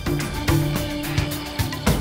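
Background soundtrack music: a held low note under a run of short, sharp notes.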